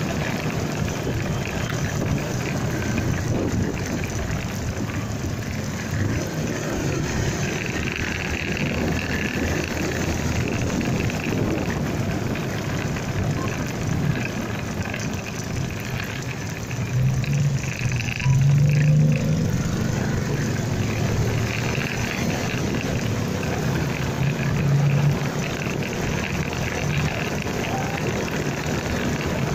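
Riding on a motorcycle through traffic: steady engine and road noise with rushing air. A louder low engine drone swells about two-thirds of the way through and again briefly near the end.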